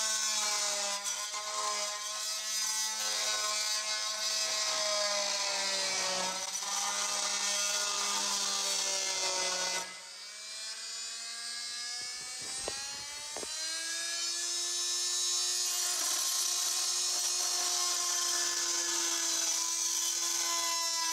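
Oscillating multi-tool running steadily, its blade cutting into the end of a wooden stair tread. About ten seconds in it drops quieter, a couple of short knocks follow, and then it runs on at a higher, steady pitch.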